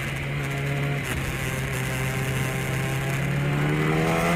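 Engine drone, steady at first, then its pitch slowly rising over the last second or so.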